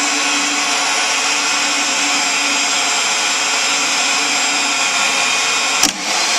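Rothenberger ROPOWER 50R electric pipe threading machine running steadily while threading a pipe. A single sharp click comes about six seconds in.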